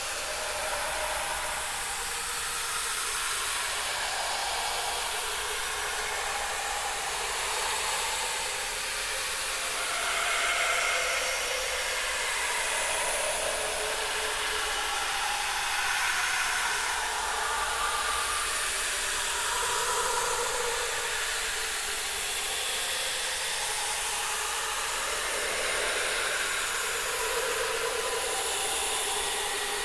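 Creepy horror ambience: a steady airy hiss with no low end, with soft, hollow swells drifting slowly up and down in pitch through it.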